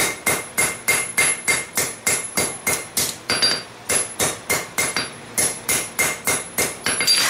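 Hand hammer striking a red-hot railroad spike on a steel anvil, steady blows about three a second, each with a short bright metallic ring. The smith is smoothing the spike's square-to-round transition while the steel is hot.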